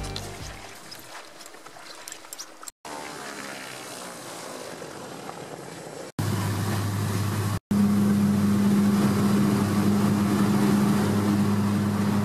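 Background music fades out at the start. Then, across several abrupt cuts, a high-wing bush plane's engine and propeller are heard, first as the plane passes outside and, from about eight seconds in, as a steady low hum inside the cabin in flight, the loudest part.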